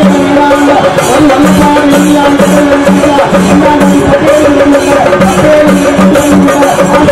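Music with a steady drum beat under a held, sustained tone.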